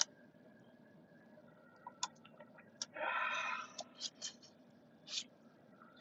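Faint scattered clicks close to the microphone, with one short rustle about three seconds in: quiet handling noise.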